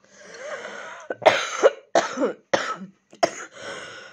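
A woman coughing in a fit: a rasping breath, then about five short, sharp coughs, then another breath near the end. She puts the coughing down to wading and stirring up the pond water.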